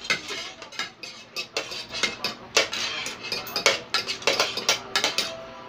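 Spoons and forks clinking and scraping against plates during a meal, in quick, irregular clicks.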